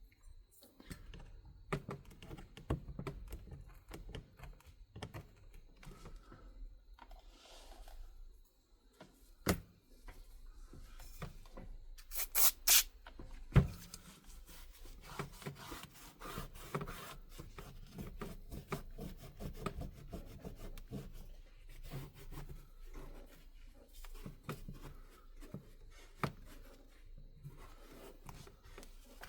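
Old adhesive being scraped and rubbed off a tablet's frame, in uneven scratchy strokes with scattered small clicks and taps, and a few sharper, louder scrapes and knocks about halfway through.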